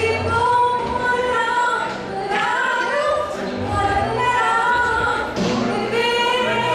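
A young woman singing solo into a microphone, amplified over a PA, holding long sustained notes.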